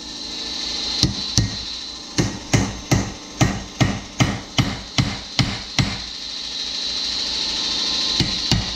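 Hammer striking a cold chisel wedged in the crack of an old steel wheel-bearing race on the hub, to split it. About a dozen sharp metallic blows in an even rhythm, two to three a second, then a pause and two more blows near the end.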